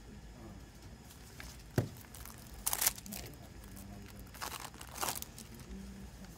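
Cellophane shrink wrap on a CD case crinkling as the case is handled and turned over, with a sharp tap about two seconds in and louder bursts of crinkling around three and five seconds in.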